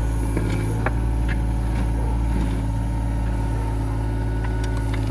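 Hitachi ZX26 mini excavator's diesel engine running steadily, with a few light clicks and clanks.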